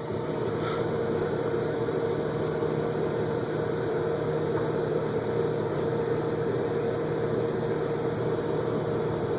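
Microwave oven running with a steady hum, partway through a 30-second heating cycle.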